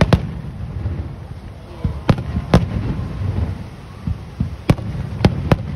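Aerial fireworks display: about six sharp shell bursts at uneven intervals over a continuous low rumble of further explosions.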